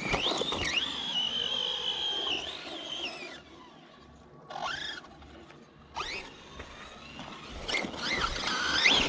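Redcat Kaiju EXT RC monster truck's electric motor whining under throttle during a hill-climb run, its pitch rising and falling with the throttle. It comes as a long run, a short lull, then several shorter bursts.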